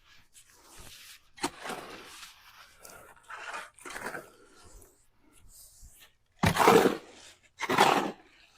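Wet concrete mix being hand-mixed: a tool scraping and churning through the gritty mix, with softer strokes at first and two loud scraping strokes near the end.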